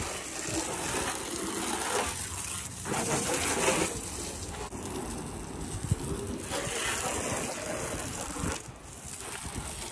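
Water jetting from a garden hose spray nozzle and spattering on a car's body panels and wheel as the car is rinsed off; near the end the jet goes into a plastic bucket. A brief knock sounds about six seconds in.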